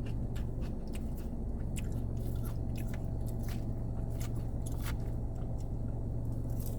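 A person chewing a mouthful of salad with crisp lettuce and croutons close to the microphone: irregular wet crunches and clicks. A steady low hum runs underneath.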